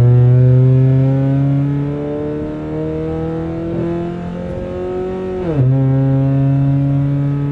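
Car engine accelerating, its pitch climbing steadily, then dropping sharply about five and a half seconds in as it shifts up, after which it pulls at a steady pitch.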